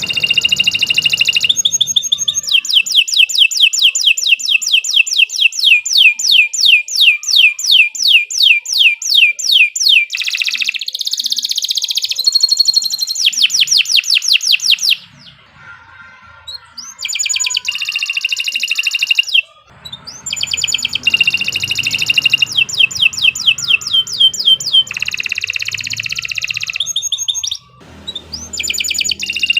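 Domestic canary singing a long, loud song: a run of repeated rising notes at about three or four a second for several seconds, then faster rolling trills, broken by short pauses.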